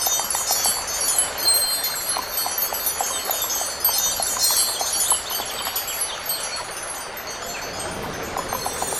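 Cartoon sound effect of glittering chimes, like a wind chime: a dense, steady shimmer of high ringing tones with quick light tinkles, thinning a little about seven seconds in before building again.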